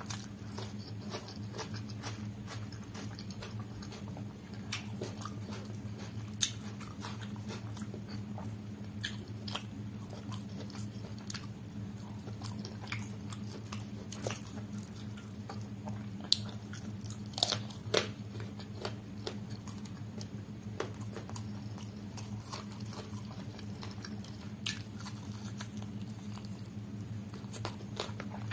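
Close-miked eating: wet chewing and lip smacks on mouthfuls of rice and chicken curry eaten by hand, with many small clicks and a few sharper smacks in the middle, over a steady low hum.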